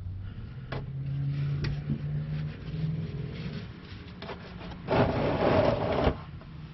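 Plastic oil drain pan dragged across the floor: one loud scrape lasting about a second, past the middle, after a low steady hum.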